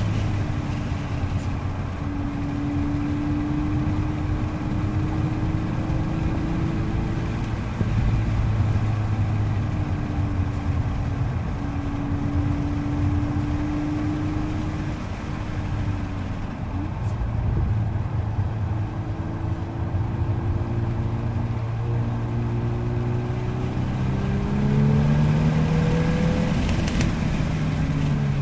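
Golf R's turbocharged 2.0-litre four-cylinder engine pulling on track, heard from inside the cabin over steady tyre and road noise. The engine note holds fairly level through a long bend, then climbs in pitch over the last few seconds as the car accelerates, and falls away right at the end.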